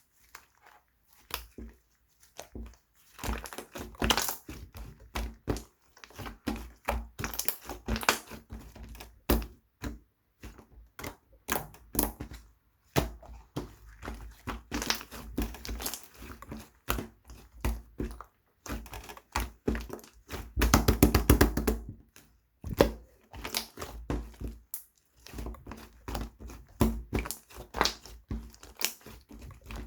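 Wood glue slime being squished and poked by hand, giving a stream of sticky clicks and pops, with a dense run of crackling about two-thirds of the way through.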